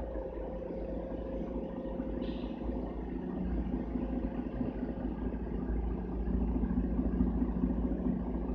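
Mercedes-Benz Citaro bus with an OM457 hLA six-cylinder diesel running, heard from inside the passenger cabin as a steady low drone. The drone grows louder about six seconds in.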